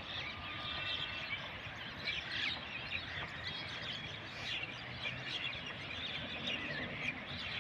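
A flock of mynas chattering, with many short chirps and calls overlapping throughout.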